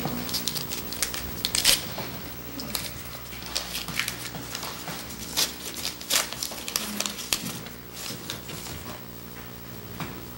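Trading-card pack wrapper being torn open and crinkled by hand, with the cards handled, as a run of irregular sharp crackles that thins out after about eight seconds.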